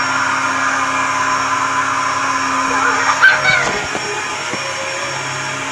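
Upright vacuum cleaner running steadily, with a brief high, voice-like sound about three seconds in.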